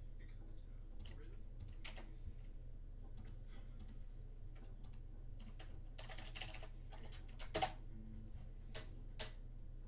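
Irregular light clicks and taps, with one sharper, louder click about three-quarters of the way through and a smaller one near the end, over a low steady hum.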